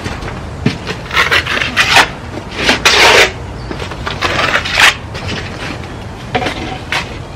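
Steel trowel scraping lime-rich sand render: strokes spreading it across the brick wall, then scooping it off the mixing board onto the hand board. A series of separate rough scrapes, the loudest about three seconds in.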